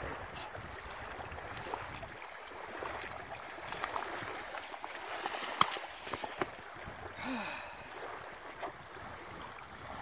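Small waves washing on a sandy shore, a steady watery hiss, with a few sharp clicks scattered through; the loudest click comes about halfway in.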